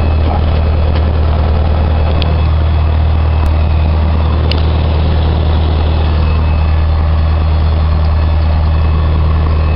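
Cessna 152's four-cylinder Lycoming O-235 engine and propeller running steadily, heard from inside the cabin as a constant low drone.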